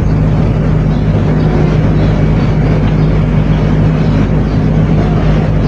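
A machine running steadily: a constant low electric hum under a dense, even whirring noise.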